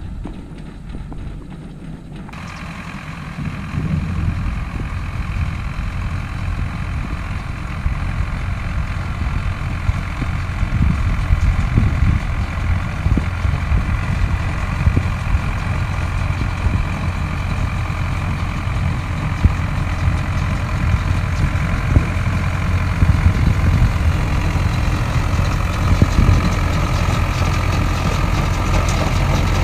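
Belarus MTZ tractor's diesel engine running under load while it pulls a round baler through windrowed hay, with the baler's mechanical clatter on top. It grows gradually louder as the machine comes closer.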